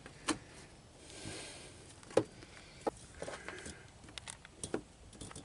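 Hands and a tool working among bundled wiring and air brake hoses: a few scattered small clicks and knocks over faint rustling.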